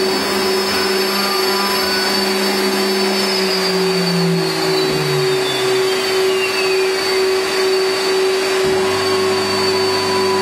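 CNC router with its spindle and dust extraction running, a steady drone like a vacuum cleaner with a constant whine. A second tone glides down in pitch between about three and six seconds in.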